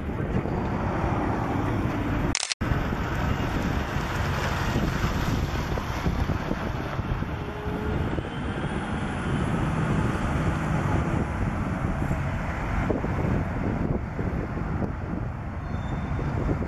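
Diesel switcher locomotive engine running steadily as it creeps along slowly with a string of tank cars, a low, continuous rumble mixed with wind on the microphone. The sound cuts out completely for an instant about two and a half seconds in.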